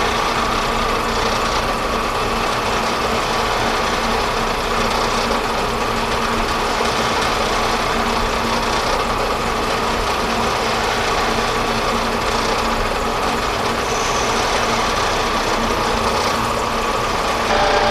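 Metal lathe running steadily in open-belt drive, a machine hum with a steady whine, while turning down the outside diameter of a steel bushing. The tone changes slightly near the end.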